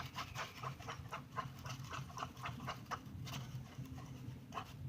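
Glue-and-glitter slime mixture being stirred in a bowl: a run of soft, irregular wet clicks, several a second. The mixture is still watery, not yet activated.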